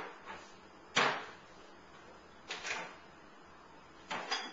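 Short knocks and clatters of things being handled in a kitchen: a sharp knock about a second in, then two softer rattling clatters.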